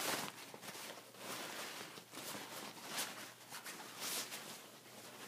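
Soft, irregular rustling and scuffing of a nylon rucksack being handled close to the microphone, in swishes about a second apart.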